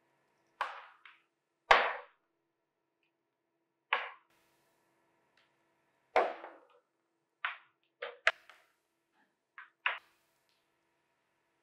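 Pomegranate peel and seeds of a mask worn on the face cracking and squelching as hands press and pull at it: about ten short, sharp cracks at uneven intervals, each fading fast. The loudest come about two seconds and six seconds in.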